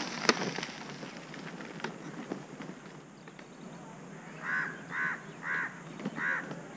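A crow cawing four times in quick succession in the second half, short harsh caws, after a single sharp click near the start.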